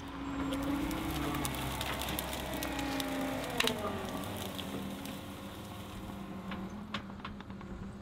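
John Deere 325G compact track loader's diesel engine running as it drives up and drops a grapple load of brush, with branches cracking and snapping, the loudest snap about three and a half seconds in. The engine's pitch falls a little around the middle, then holds steady.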